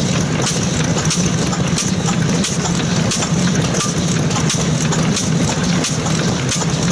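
Karuishiki 4.5 hp stationary kerosene engine running slowly: a steady low chugging with a sharp click about once a second.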